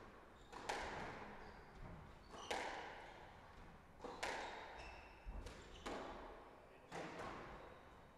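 Squash rally: the ball cracks off the rackets and the walls about five times, a second or two apart, each hit ringing on in the court's echo. Brief high squeaks, likely shoes on the wooden floor, fall between the hits.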